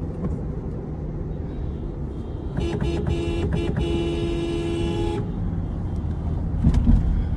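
Car horn honking: a few quick toots, then a blast held for about a second and a half. Underneath is the steady rumble of road and engine noise from a car driving at speed.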